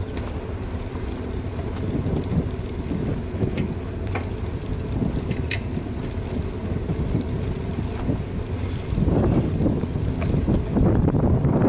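Wind buffeting the microphone of a bicycle-mounted action camera while riding: a steady low rumble that swells louder about nine seconds in and again near the end, with a few faint clicks.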